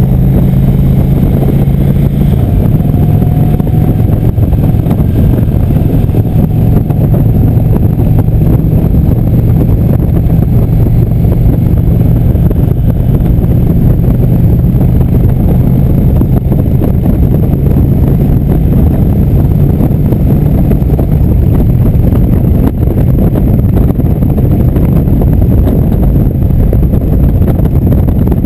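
Indian motorcycle's V-twin engine running steadily at road speed, under heavy wind rumble on the microphone.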